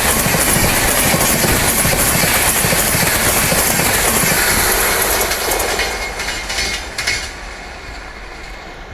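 Howrah–Mumbai Duranto express passing at about 110 km/h: a loud rush of steel wheels on rail with clickety-clack over the joints. About five seconds in, the last coaches clatter by and the sound fades away.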